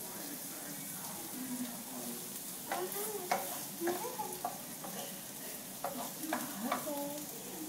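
Food sizzling in a frying pan while it is stirred, with scattered clicks and scrapes of the spatula against the pan.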